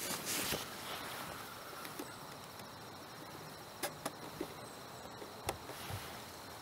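Insects trilling steadily and high in the background. A few soft clicks and handling noises come from a medium-format film camera on a tripod as its controls are set.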